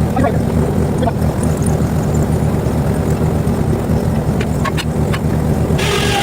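Portable bandsaw mill's engine running steadily under load, with scattered light knocks. About six seconds in, a higher rushing, rasping noise joins it.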